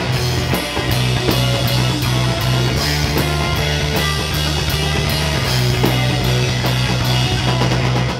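A live rock band plays loudly: distorted electric guitar, electric bass holding a strong low line, and a drum kit with cymbals struck in a steady fast beat.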